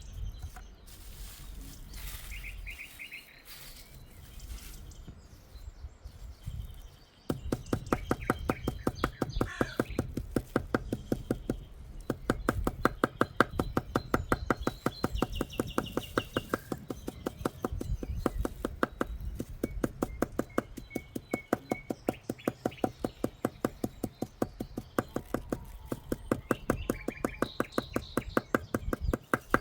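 Birds chirping. About seven seconds in, a sewing machine starts stitching with a fast, even run of clicks that goes on steadily while the birds carry on.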